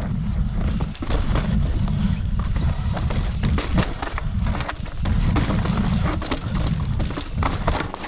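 Mountain bike riding down a rocky trail: frequent knocks and rattles from the tyres and frame hitting rocks, over a steady low rumble of wind on the camera's microphone.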